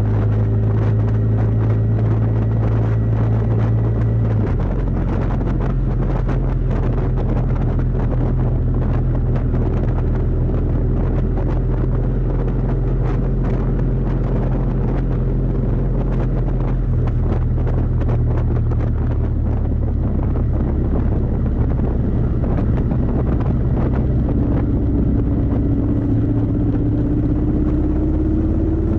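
Kawasaki VN750 Vulcan's V-twin engine running at cruising speed under wind noise on the bike-mounted microphone. Its note steps to a new pitch about four seconds in and again about seventeen seconds in. A rising tone enters near the end.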